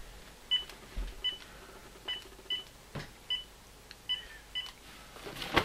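Cordless phone handset keypad beeping as a number is dialled: seven short, high beeps at an uneven pace, with a couple of faint clicks between them.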